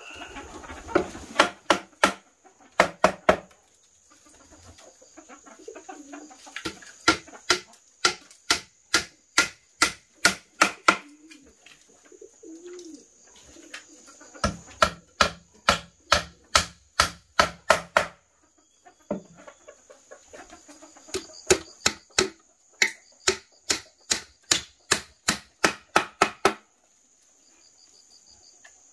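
Chopping: sharp strikes about three a second, in runs of several seconds with short pauses between them. A steady high-pitched insect drone runs underneath.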